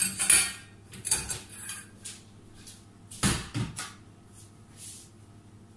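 Kitchen handling noise: a clatter at the start, a knock about a second in and a louder thud about three seconds in, like hard utensils being put down and a cupboard shutting, then only faint movement.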